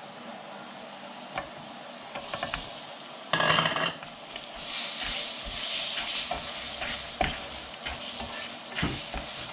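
Spices, onion and aromatics frying in hot oil in a pan, with a steady sizzle. About three seconds in there is a short loud burst of sizzling as chopped tomato and kudampuli go into the hot oil. After that the sizzling is louder, with the clicks and scrapes of a spoon stirring the pan.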